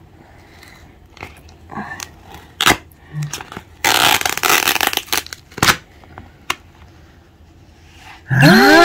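Paper masking tape being peeled off a clear plastic Elizabethan collar: a long ripping tear about four seconds in, among sharp clicks and crinkles from the plastic cone. Near the end a person's voice sets in with a long drawn-out call that rises in pitch.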